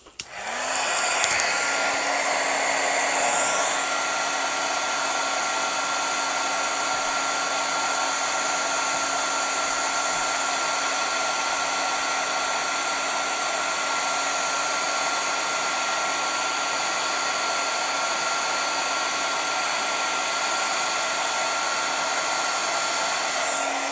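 Embossing heat gun switched on about half a second in, then blowing steadily with a constant motor hum and a thin whine, melting embossing powder on stamped cardstock.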